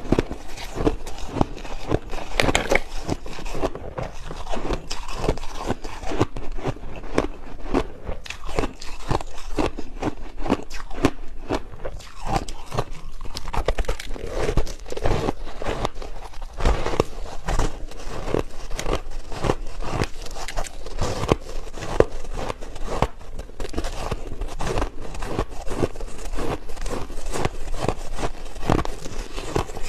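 Soft crushed ice being bitten and chewed close to a clip-on microphone: a dense run of crisp crunches and crackles, several a second.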